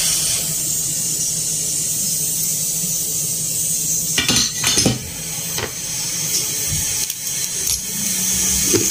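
Several light metallic clinks and taps of tweezers and tools, the loudest about four to five seconds in, over the steady hiss and low hum of a hot-air rework station.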